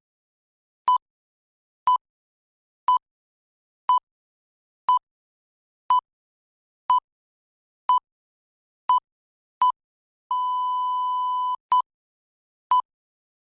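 Electronic countdown-timer beeps: a short, high, single-pitched beep about once a second. About ten seconds in, one longer beep lasting just over a second marks the end of the 60-second countdown, then the once-a-second beeps start again.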